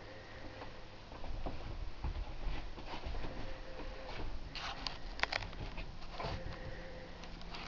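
Handling noise from a handheld camera being moved about: a faint low rumble, with a cluster of light clicks about five seconds in.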